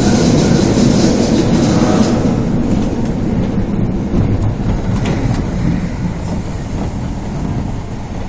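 Osaka Municipal Subway Series 22 train running, with steady wheel-on-rail noise and clatter, growing gradually quieter after about two seconds.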